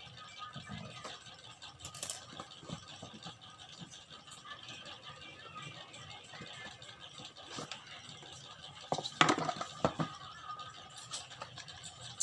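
Phone box and packaging being handled and opened: scattered clicks, light scraping and rustling, with a few louder sharp handling sounds about nine seconds in.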